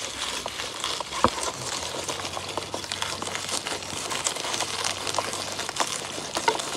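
Garlic cloves being rubbed across the metal blade of a handheld box slicer: a steady crisp rasping with many small clicks as the slices fall into the box, and one sharper click about a second in.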